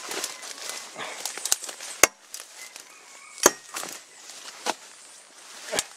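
A blade chopping through brush and branches: three sharp chops, the first about two seconds in and the last near the end, with lighter cuts and rustling of undergrowth between them.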